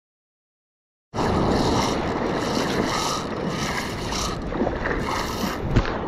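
Silent for about the first second, then wind buffeting an action camera's microphone over breaking surf, with a single knock near the end.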